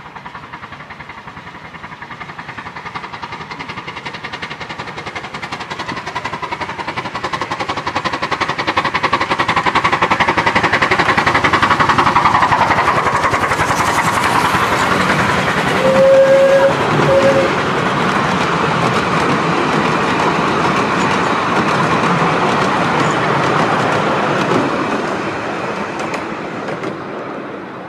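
A miniature steam train approaches and passes close by on curved track: the locomotive and wheels grow steadily louder, the carriages clatter past at their loudest, then the sound fades away near the end. About halfway through, a short tone sounds twice in quick succession, like a brief whistle.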